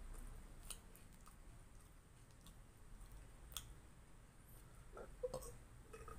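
Faint chewing of a fried spring roll (lumpia), mostly closed-mouth: scattered soft mouth clicks, with a few small handling sounds near the end.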